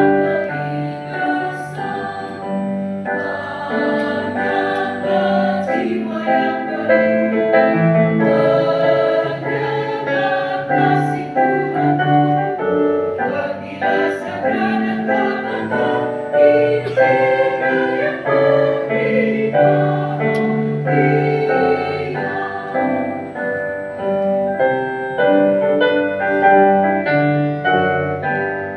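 A church choir singing a gospel hymn in parts, accompanied by piano.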